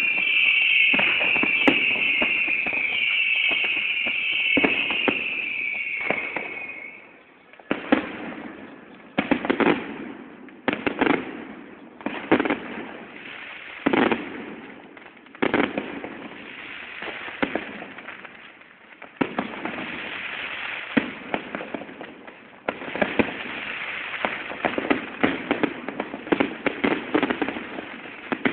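Fireworks going off: a high whistle, falling slightly in pitch, repeats over the first seven seconds or so, then a long run of sharp bangs and crackling bursts.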